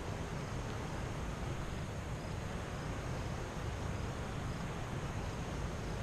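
Steady low rumble of wind on the microphone, with faint high chirps about once a second.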